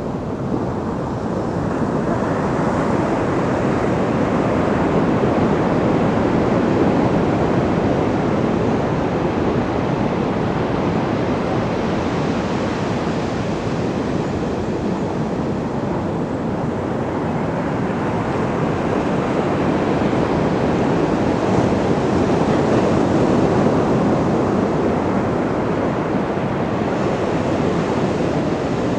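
Ocean surf: a continuous rushing wash of waves breaking on the shore, swelling louder a few seconds in and again a little past halfway.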